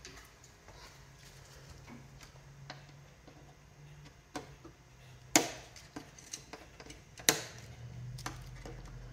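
Plastic zip-tie tails snipped off with cutters: two loud, sharp snaps about two seconds apart, past the middle, among lighter clicks and handling of the plastic.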